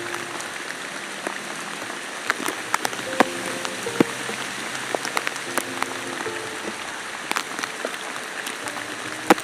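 Steady rain, an even hiss with frequent sharp clicks of single drops landing close by.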